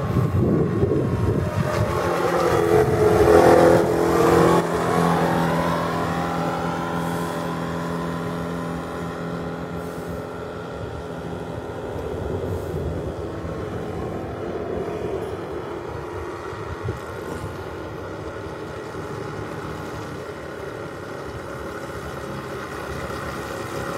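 Four-stroke engine of a radio-controlled model boat running on the water. It is loudest as it passes close about three to four seconds in, its pitch dropping as it goes by. It then runs on farther out and grows louder again near the end as the boat heads back.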